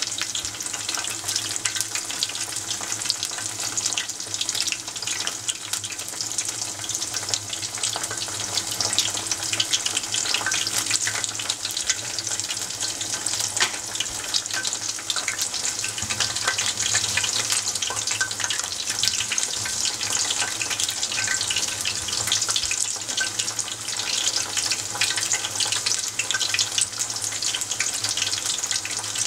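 Battered eggplant and green vegetable tempura deep-frying in a pot of hot oil: a steady, dense sizzle with fine crackling.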